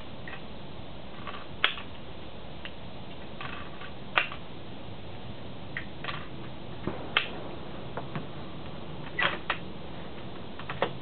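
Bolt-action Howa .243 rifle being loaded by hand: a handful of short, sharp clicks and clacks, spaced irregularly a second or more apart, as cartridges are handled and the bolt is worked.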